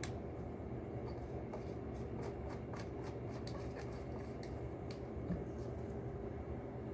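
Faint scattered clicks and handling sounds of a camera zoom lens being fitted and turned, over a steady low hum.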